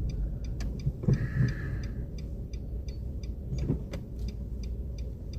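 Car's indicator relay ticking steadily, about twice a second, over the low rumble of the car running, heard from inside the cabin. About a second in, a brief steady higher tone lasts about a second.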